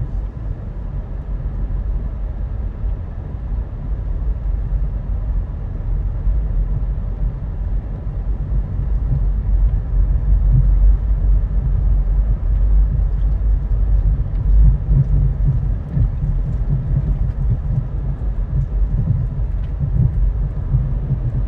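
Steady low rumble of a car driving slowly, engine and tyre noise, getting somewhat louder about halfway through.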